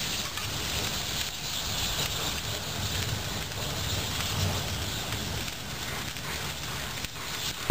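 Burning Ford F-150 pickup truck: the fire makes a steady low rumble and hiss with faint crackles. At the very end there is a sudden loud bang, a tire bursting in the heat.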